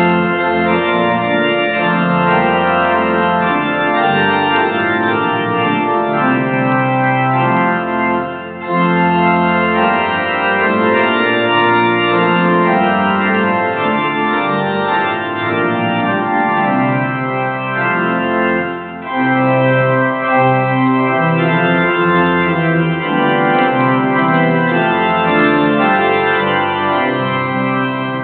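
Organ playing held chords in slow phrases, with brief breaks about 8 seconds and 19 seconds in: the postlude after the dismissal that closes a church service.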